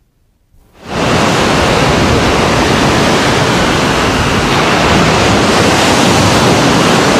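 Ocean surf washing onto a sandy beach, a steady rushing noise that fades in from silence about a second in.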